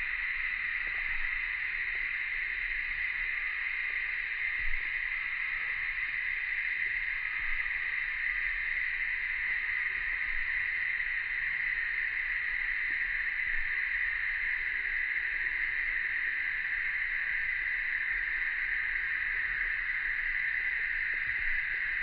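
Summer cicadas droning in a steady, unbroken chorus, high and hiss-like.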